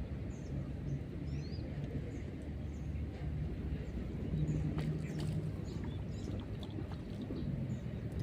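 A steady low hum, like a small motor running, with many faint, high, short bird chirps and a few light clicks over it.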